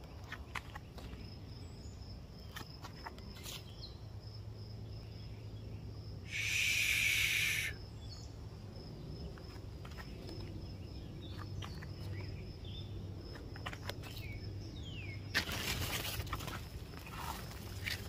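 Garden ambience: a steady, high, pulsing insect trill with scattered short bird chirps. About six seconds in there is one loud hissing buzz lasting about a second and a half, and the last few seconds turn louder and noisier.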